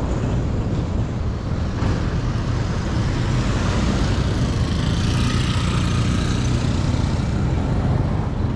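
A vehicle on the move: a steady low engine drone with road noise.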